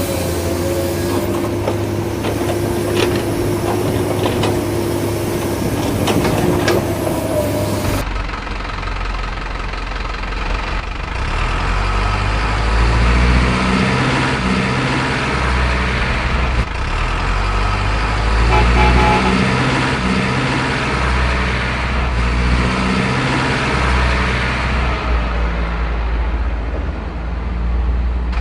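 Heavy diesel engines of dump trucks and an excavator running, with scattered knocks in the first part. After a change about eight seconds in, a deeper engine rumble rises and falls in pitch.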